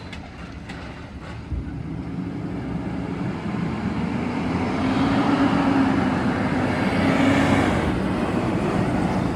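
Yard waste collection truck's diesel engine approaching, growing steadily louder.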